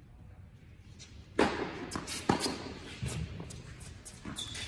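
Tennis ball struck by rackets and bouncing on an indoor hard court: two sharp pops about a second apart, then a couple of fainter hits, ringing in the hall. Near the end a shoe gives a brief high squeak on the court.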